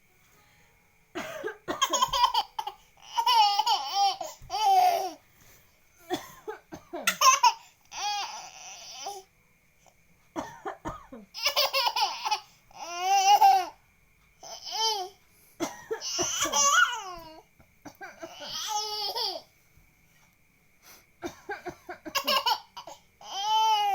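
A young child laughing in high-pitched, cough-like bouts, over and over with short pauses between.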